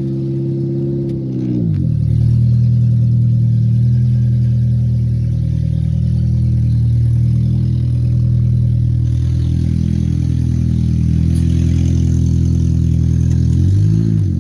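2005 Toyota Matrix engine, just started, running at a high fast idle that drops about two seconds in to a steady lower idle. Near the end a brief rev rises and falls.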